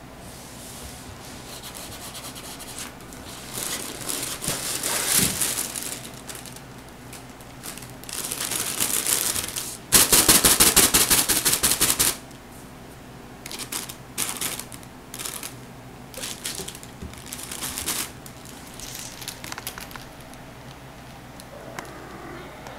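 Crinkly vinyl cat tunnel rustling in bursts as a hand shakes it and scrapes at its fabric. The loudest part is a rapid rattling scrape lasting about two seconds near the middle, followed by short scattered rustles.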